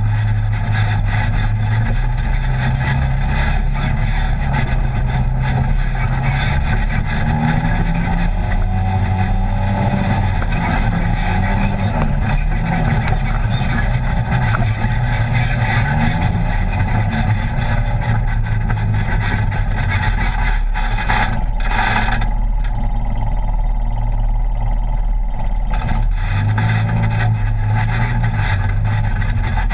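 Polaris RZR side-by-side engine running as it drives a dirt trail, heard from inside the open cab, its pitch rising and falling with the throttle over steady rolling and rattling noise. A short burst of louder noise comes about twenty-one seconds in.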